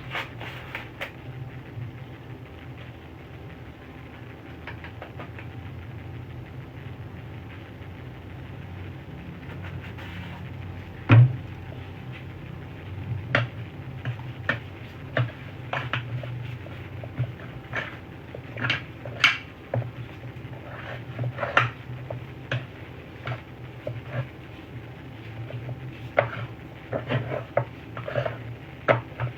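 Kitchen handling sounds as pizza dough is worked: scattered clicks and knocks of utensils and containers, the sharpest about eleven seconds in and more frequent in the second half, over a steady low hum.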